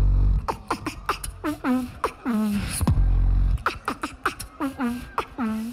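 Human beatboxing into a handheld microphone over a PA: a rhythmic pattern of sharp click-like snares and hi-hats, short falling-pitch vocal sweeps, and a deep bass hum held at the start and again about three seconds in.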